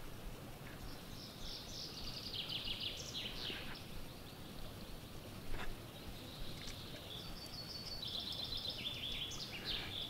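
Songbirds singing: two rapid trilled phrases, each stepping down in pitch and ending in a brief flourish, over the low hiss of the woods. A single short knock sounds about halfway through.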